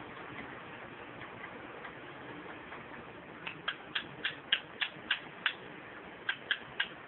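Indian ringneck parakeet giving a quick run of about eight short, sharp chirps, then three more after a brief pause.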